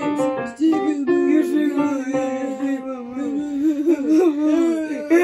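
Background music with a sung melody over instruments.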